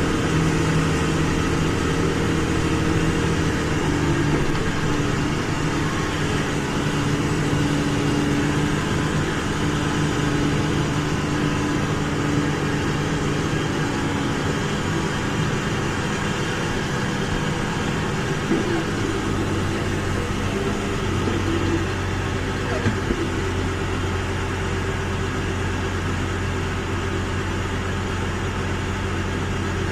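Diesel engine of a large farm machine running steadily, heard from inside the cab. Its tone shifts about four seconds in, and a deeper low drone comes in about nineteen seconds in and holds.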